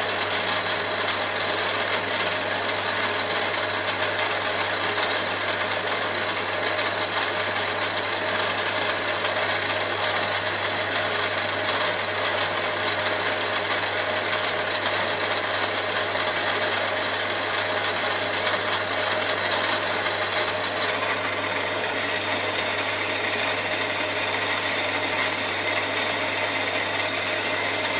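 Milling machine running steadily with a small end mill in the spindle over an aluminium cylinder block: a constant hum with a whine of steady tones, the higher tones shifting about three quarters of the way through.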